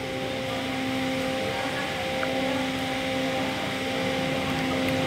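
Steady mechanical hum with a few constant tones under an even hiss, the running background noise of the room.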